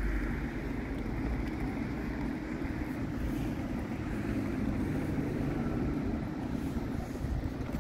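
Light-rail tram rolling slowly into the station, a steady low rumble of its motors and wheels on the rails.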